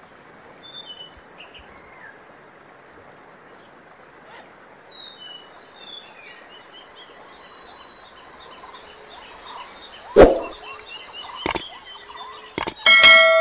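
Small fountain's water splashing steadily, with small birds chirping over it. Near the end come a few sharp knocks, the first the loudest, and then a loud ringing tone.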